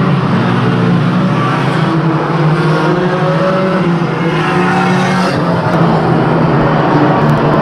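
Engines of several small hatchback banger racing cars running together as the pack races around the oval, their pitch rising and falling as they accelerate and ease off.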